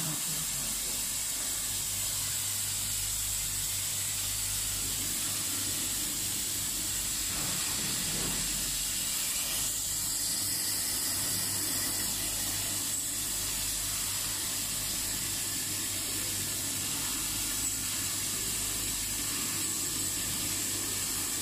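Large flatbed CO2 laser cutting machine running while it cuts 10 mm MDF: a steady hiss with a low hum and a faint high whine.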